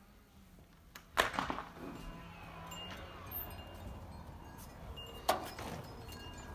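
A front door's latch clicks and the door opens about a second in, followed by a second sharp door click about five seconds in as the storm door opens. Between the clicks, faint wind chime tones ring outside.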